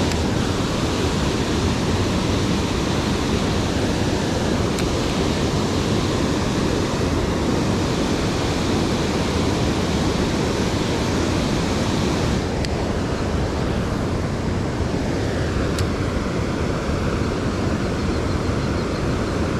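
Steady rushing of flowing river water, a loud even noise with no pitch; the higher hiss eases slightly about three-quarters of the way through.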